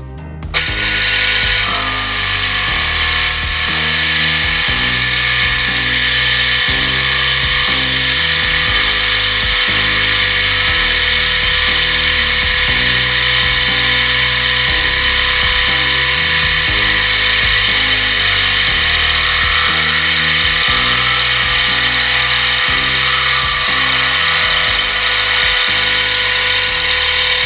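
Metal lathe facing a rusty plasma-cut steel plate: the spindle runs steadily while the cutting tool scrapes across the rusty face with a continuous hiss. Background music with a steady beat plays under it.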